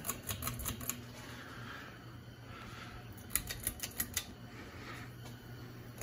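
Many ceiling fans running together: a steady low hum with the whoosh of spinning blades. Two short bursts of rapid clicking, at the start and a little past halfway.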